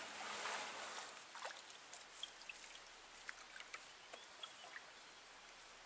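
Faint moving water around a small wooden rowing skiff, with a louder wash for the first second or so, then quiet trickling. Scattered small clicks and short high chirps run through it.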